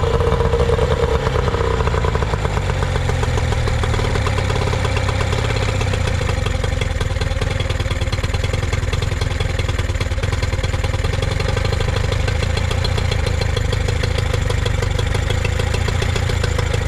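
Older Nissan 18 hp two-stroke outboard, a two-cylinder motor built by Tohatsu, running steadily at idle. Its idle pilot screw is being set to cure an inconsistent idle speed.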